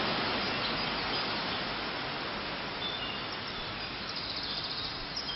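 Water pouring over a river weir, a steady rush that slowly fades, with birds chirping from about three seconds in.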